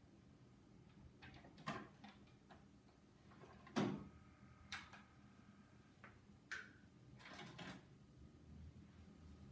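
Vintage cassette decks being switched on one after another, giving a handful of sharp mechanical clicks and clunks from power switches and tape transports engaging. The loudest comes about four seconds in, and a quick run of clicks comes near the end.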